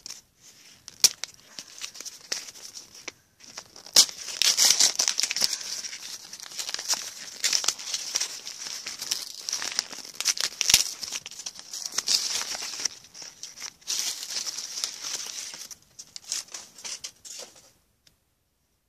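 Wrapper of a football trading-card pack being torn open and crinkled by hand, an irregular crackling with sharp snaps that stops abruptly near the end.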